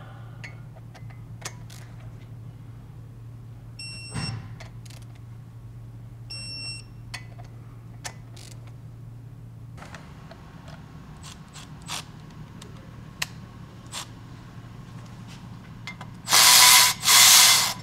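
Scattered tool clicks as flywheel bolts are worked, with a few short electronic beeps, then near the end two loud bursts of a cordless power ratchet spinning the flywheel bolts in.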